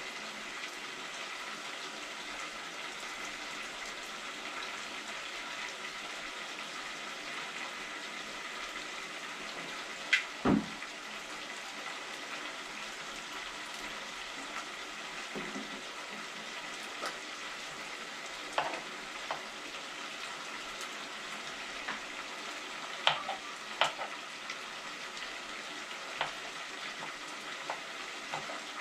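Food sizzling steadily as it fries in a pot, with scattered light clicks and knocks of a utensil or pot and one louder knock about ten seconds in.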